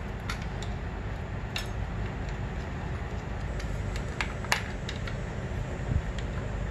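Light metal clicks and taps as a Honda CR85R's front brake caliper, its pads spread apart, is handled and slid back onto the fork's mount, a handful of separate ticks with a sharper click about four and a half seconds in and a duller knock near six seconds, over a steady low hum.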